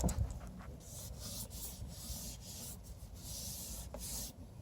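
A run of short rubbing or brushing noises, each a brief hiss, some longer than others, with a low rumble underneath.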